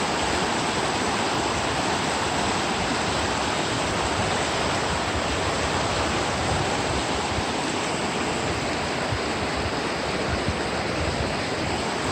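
River water rushing, a steady even rush with no let-up.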